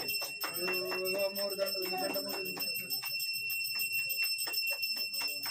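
Temple hand bell rung rapidly and continuously during aarti, each clapper stroke over a steady high ring.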